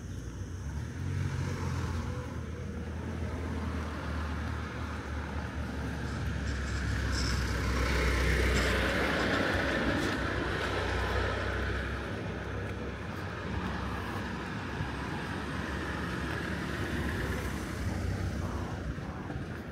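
A car driving past on the street: engine rumble and tyre noise build to a peak about eight seconds in, then fade away.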